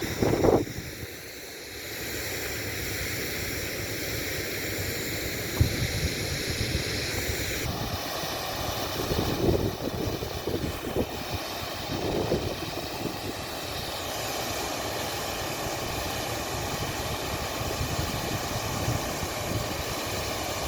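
Steady rushing of water from a small waterfall, with a few low bumps.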